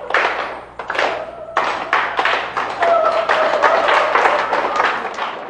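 Audience applauding and cheering after the song ends, with some high shouts over the clapping; it fades out near the end.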